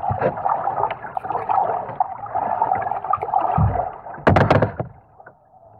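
Kayak paddling: water sloshing and splashing against the hull with small drips and clicks. About four seconds in comes a quick cluster of loud knocks as the paddle's metal shaft is set down across the kayak, and then it goes quiet.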